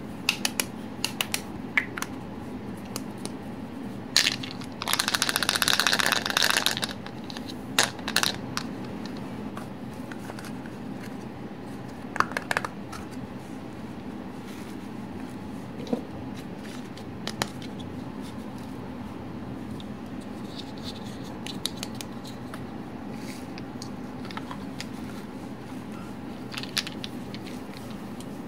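Small plastic toy doctor-kit pieces being handled: scattered clicks and light knocks as they are picked up, fitted together and set down, with a dense rustling stretch of about two seconds near the start. A steady low hum runs underneath.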